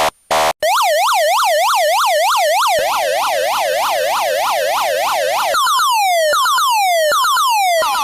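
Electronic police siren switching tones: a brief buzzing horn blast, then a rapid yelp sweeping up and down about four times a second, changing about five and a half seconds in to a repeated falling sweep about two and a half times a second.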